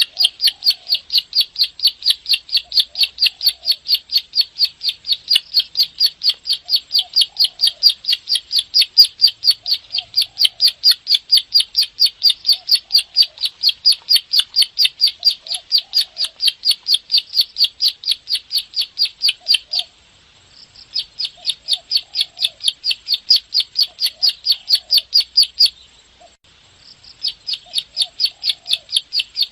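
Ciblek sawah (prenjak sawah) calling in a fast, even string of sharp, high clicking notes, about three or four a second, broken by two short pauses near the end.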